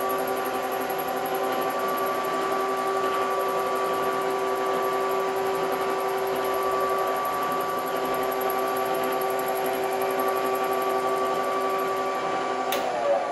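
Milling machine running at about 660 RPM with a small shop-made fly cutter taking a light, hand-fed facing cut about ten thousandths deep across a steel part: a steady machine hum with several steady tones. A sharp click near the end.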